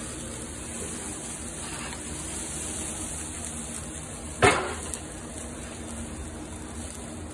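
A single sharp clink, like metal knocked against metal, about four and a half seconds in, with a faint second tick just after, over a steady background hiss.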